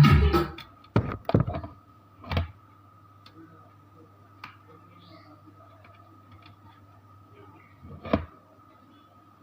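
Loud music from the amplifier under repair stops abruptly about half a second in. A few sharp knocks and clicks of handling on the workbench follow, two close together near the start, one a second later and one near the end, over a faint steady mains hum.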